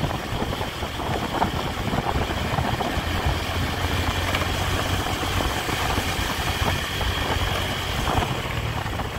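Honda Tiger motorcycle's single-cylinder four-stroke engine running steadily while riding at a constant speed, under a steady rush of road and wind noise.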